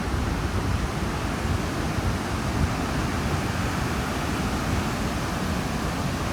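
Pacific Ocean surf breaking and washing up the beach, a steady rushing noise, with wind rumbling on the microphone.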